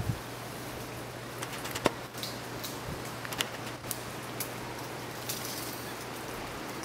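Scattered snaps and crackles of twigs and leaves in the canopy as a white-faced capuchin climbs and forages, over a steady hiss of outdoor background.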